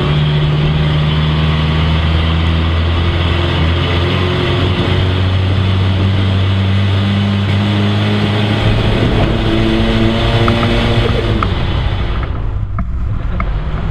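Car engine running while the car drives, heard from inside the cabin of a road car built from an airplane fuselage. Its note shifts in pitch a few times. Near the end, the road hiss drops away.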